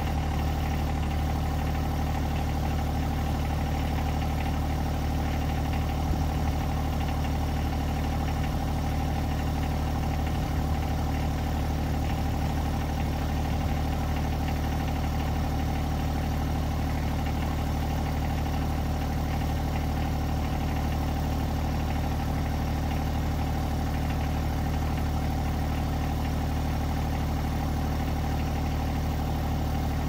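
John Deere 1025R compact tractor's three-cylinder diesel engine idling steadily.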